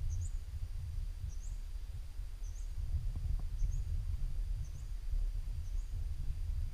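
Outdoor field ambience: a steady low rumble, with a short, high chirp from a small animal repeating about once a second.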